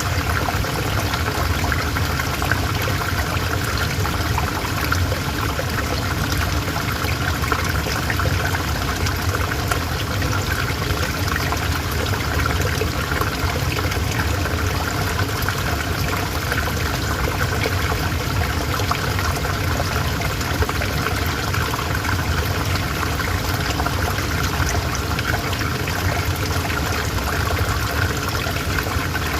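River water flowing, a steady, unbroken rush with fine trickling and splashing.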